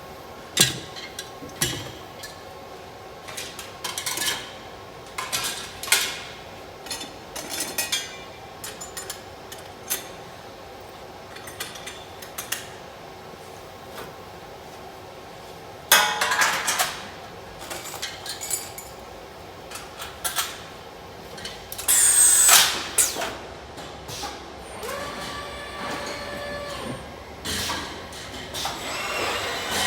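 Car-parts welding machinery at work: irregular metallic knocks and clicks, with a longer noisy burst about halfway through and a louder one with a falling whistle about three quarters of the way in.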